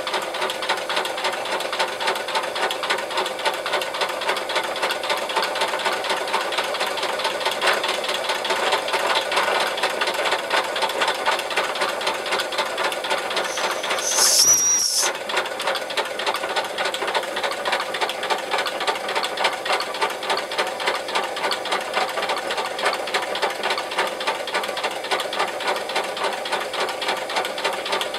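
Antique Lars Nilsson toy steam locomotive running on compressed air, its cylinders exhausting in a quick, even beat over the clatter of the spinning wheels and running gear. About halfway through comes a short, high whistling hiss as a brass valve on the boiler top is opened.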